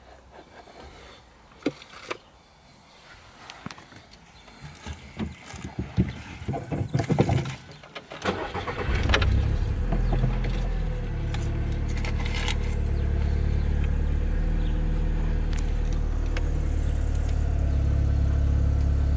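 A few handling clicks and knocks, then about eight seconds in the VW Golf Mk5's 1.6 petrol four-cylinder engine starts and settles into a steady idle, heard inside the car.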